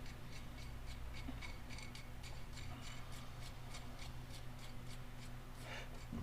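Light, even ticking about three times a second, fading out near the end, as the jam nut is turned along the threads of a Trailblazer tie rod by hand or with a wrench.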